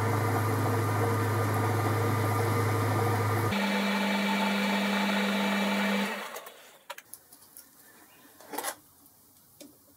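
Metal-turning lathe running steadily with a nylon bush spinning in its four-jaw chuck, a steady motor hum. About three and a half seconds in the tone changes abruptly; at about six seconds the lathe winds down and stops. A few faint clicks and knocks follow.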